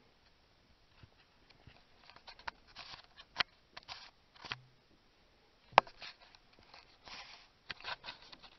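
Scattered light clicks and short scraping, rustling noises of hands and metal parts being handled, with two sharp clicks standing out, about three and a half and six seconds in.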